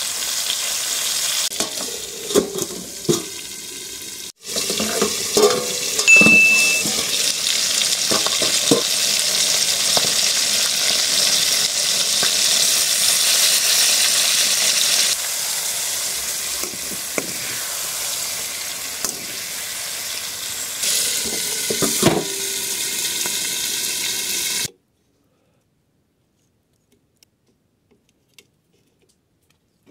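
Rohu fish curry in masala sizzling and frying in a metal kadai, with a metal spatula scraping and knocking against the pan now and then as it is stirred. The sizzling cuts off suddenly near the end, leaving near silence with a few faint ticks.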